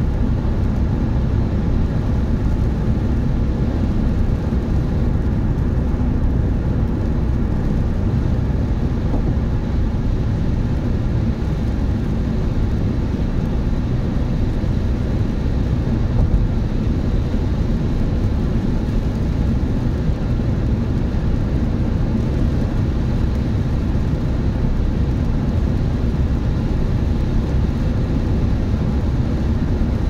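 Steady road and engine noise of a car cruising at motorway speed, heard from inside the cabin: an even low rumble with a faint steady hum above it and no change in pace.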